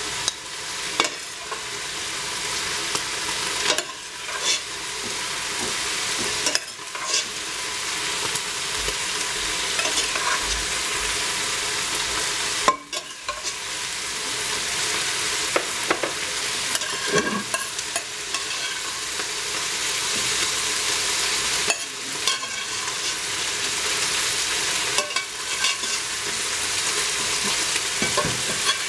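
Sautéed mushrooms sizzling in the juices of a hot stainless steel pot, with a metal spoon scraping and clicking against the pot now and then as they are lifted out onto a plate.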